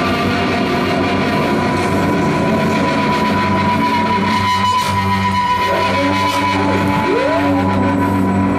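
Loud live experimental music from a synthesizer and electronics with an electric bass guitar: sustained low droning tones, a steady high whine through the first half, and a swooping pitch sweep about seven seconds in.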